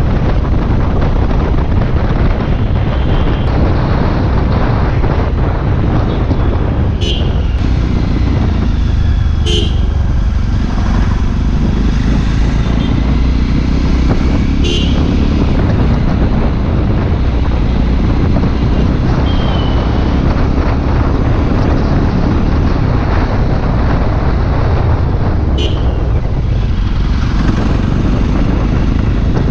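Motorcycle riding on the road: steady engine and tyre noise under heavy wind buffeting on the microphone, with a few short sharp ticks along the way.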